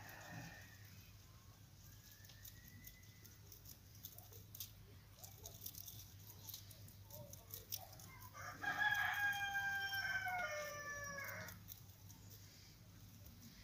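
A rooster crowing once in the background: a single long call of about three seconds, starting about eight and a half seconds in and dropping in pitch at its end. Faint scattered clicks can be heard around it.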